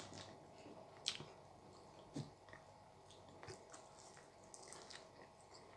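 Faint chewing and biting of a curry bun, with a few soft mouth clicks spaced about a second apart; otherwise near silence.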